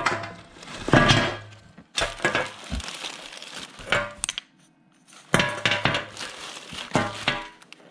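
Plastic bags of fuel filters crinkling as they are dropped and shuffled on a tabletop, with metal inline fuel filter canisters knocking and clinking against the hard surface. There are several bursts of handling with a short lull a little past the middle.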